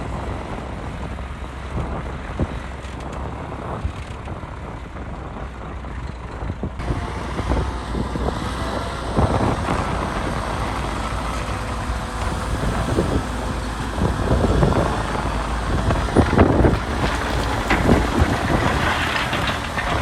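Heavy diesel machinery running steadily. From about nine seconds in, a growing run of knocks and rattles joins it and gets louder near the end.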